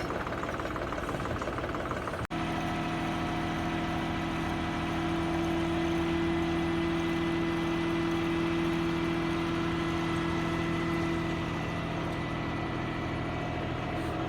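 Tractor engine running steadily with a held hum, rising a little in the middle. The sound drops out for an instant about two seconds in.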